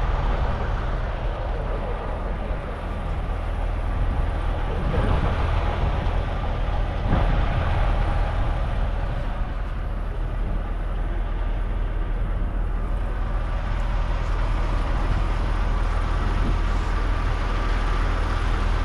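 Steady low engine rumble with outdoor background noise.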